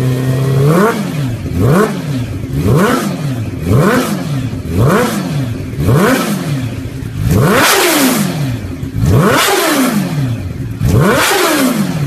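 Sport bike engine with an aftermarket silencer, stationary and idling, then revved in short throttle blips: about ten quick rises and falls in pitch, roughly one a second, the last few climbing higher and held longer.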